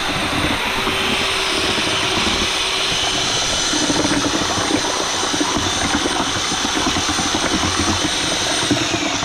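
A power tool running steadily and loudly without a break.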